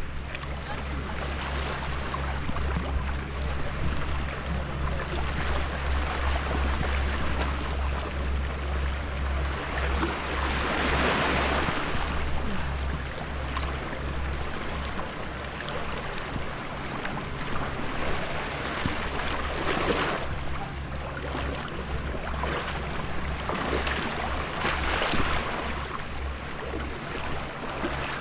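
Small sea waves washing over rocks and a pebble shore, swelling louder several times, with a steady low rumble of wind on the microphone.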